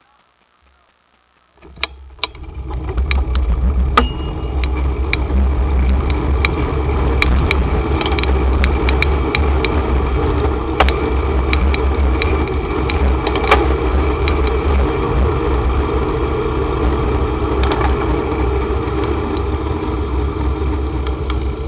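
Near silence, then about a second and a half in a sudden, loud, steady low rumble with noise over it, scattered with sharp clicks: wind and road noise on a bicycle-mounted camera's microphone while riding.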